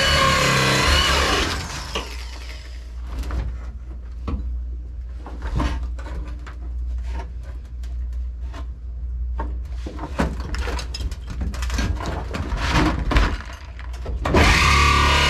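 Background music fades out about a second and a half in, leaving irregular clicks, taps and knocks of hand work on metal parts over a steady low hum. The music returns near the end.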